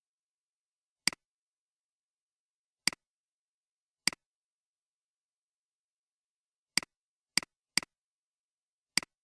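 Computer mouse clicking: seven short sharp clicks at uneven intervals, three of them in quick succession near the end.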